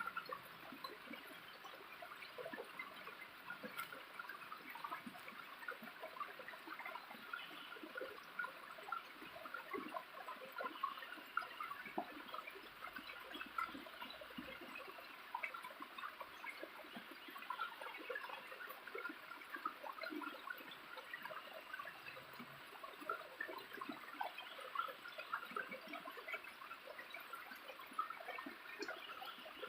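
Small waterfall splashing and trickling steadily, with many small plinks of falling water over it.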